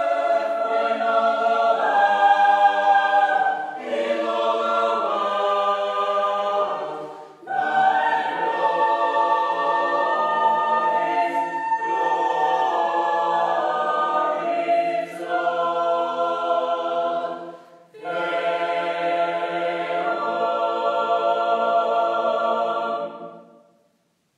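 Unaccompanied mixed choir singing a slow chordal anthem in long phrases, with short breaks about seven and eighteen seconds in. The last held chord stops shortly before the end.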